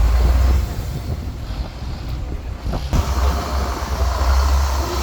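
Boat engine running with a deep, steady drone, wind blowing on the microphone.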